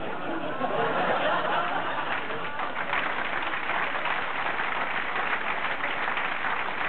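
Studio audience laughing and applauding in response to a punchline, the laughter strongest in the first couple of seconds and the clapping carrying on steadily.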